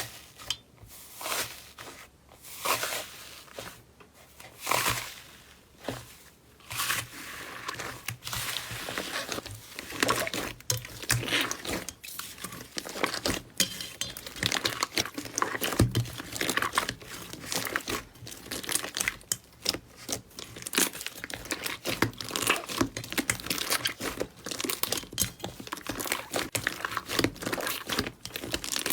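Slime being squeezed and worked by hand, with a crackling, crinkly texture: separate squishes about once a second at first, then dense, continuous crackling from about eight seconds in.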